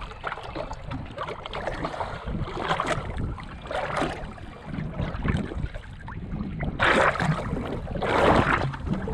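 Choppy, wind-driven lake water slapping and splashing against the hull of a small fishing boat, with wind on the microphone. There are two louder splashes about seven and eight seconds in.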